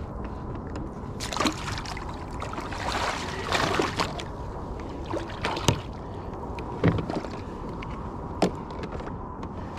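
Fish splashing and sloshing at the side of a kayak as a stringer of crappie is dropped into the water, followed by a few short sharp clicks and knocks.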